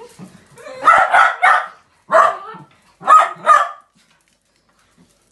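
Miniature dachshunds barking in excited greeting, loud and sharp, about six barks in three quick clusters, which stop about four seconds in.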